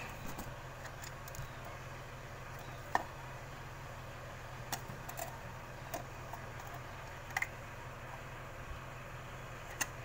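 A few scattered sharp clicks and taps as the casing of a refrigerator compressor's inverter module is handled and opened, over a faint steady low hum.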